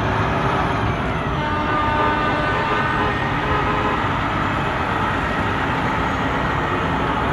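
Pickup truck engine running and its tyres on the road as it passes towing a flatbed trailer: a steady rumble, with a brief held tone about two seconds in.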